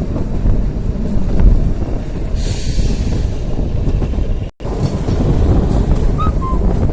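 Kalka–Shimla narrow-gauge toy train running, a loud steady rumble of the carriages on the track. The sound drops out for an instant about two-thirds of the way through, then resumes.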